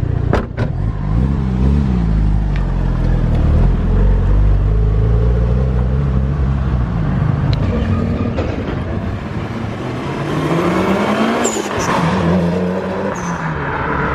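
Mitsubishi Lancer Evolution VI Tommi Mäkinen Edition's turbocharged four-cylinder engine running at low revs, then revving up under acceleration: its pitch climbs steeply about ten seconds in and falls off sharply about a second later.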